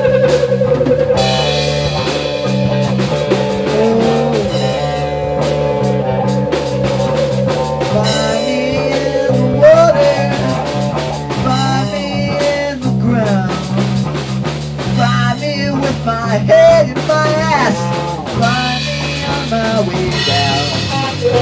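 Rock band jam on two electric guitars, bass and drum kit. A long, wavering note is held for roughly the first half, then gives way to sliding, bending notes over the steady bass and drums.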